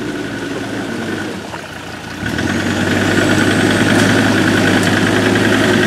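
Land Rover Discovery TD5's five-cylinder turbodiesel engine running under load as the truck crawls through mud; the engine gets louder about two seconds in and holds there.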